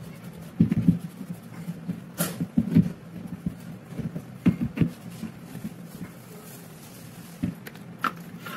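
A cloth rubbing and wiping over the steel receiver and barrel of a stripped Mauser M48 rifle action, in dull scuffing bursts with light knocks of the metal against the work surface. There is a sharp click about two seconds in and another near the end.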